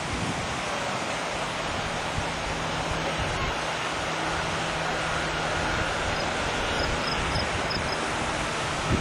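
Wind blowing across a camcorder microphone: a steady rushing noise, with a faint low hum underneath through the middle few seconds.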